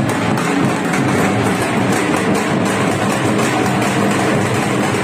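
Loud, steady din of a large festival crowd with music mixed in.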